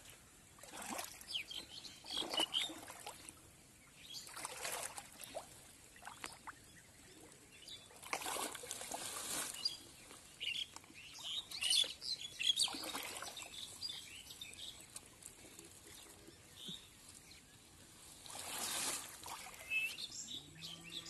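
Hands and legs sloshing and splashing in shallow muddy water among water hyacinth, in short splashes every few seconds as the mud is groped through by hand. Small birds chirp faintly in the background.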